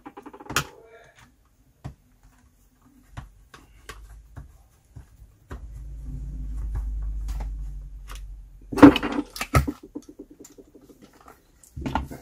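Screwdriver and hands working on the plastic housing of a steam iron: scattered small clicks and taps, with a sharper cluster of knocks about nine seconds in. A low rumble swells and fades in the middle.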